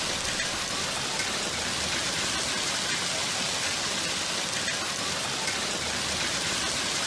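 Heavy rain mixed with hail pelting down on pavement: a steady, dense hiss.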